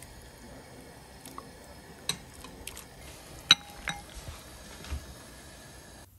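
Metal soup ladle clinking against a stainless steel pot and a ceramic bowl while soup is ladled out: a few light clinks, the loudest about three and a half seconds in.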